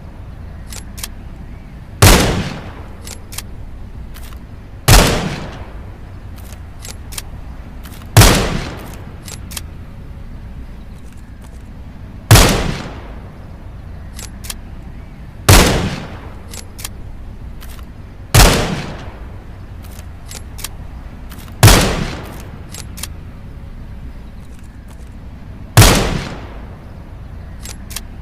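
A .22 rifle fired eight times, single shots spaced about three to four seconds apart, each a sharp crack with a short echoing tail. Faint small clicks come between the shots.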